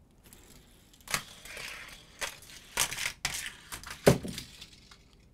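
Die-cast Hot Wheels cars running along plastic Trick Tracks and knocking into the stunt pieces, each stunt setting off the next car: a string of irregular clacks and rattles, loudest about four seconds in.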